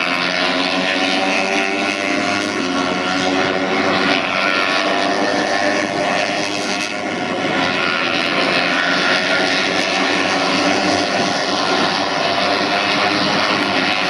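A pack of small racing motorcycles running hard at high revs. Several engines overlap, their pitches wavering as they pass through the corners.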